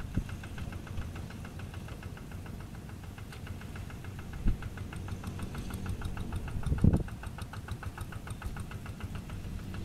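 Kubota RD110Di-2T 11 HP single-cylinder diesel of a walk-behind hand tractor running steadily under load while its rotary tiller churns wet paddy mud, with a rapid, even knocking beat. A few dull low thumps break through, the loudest about seven seconds in.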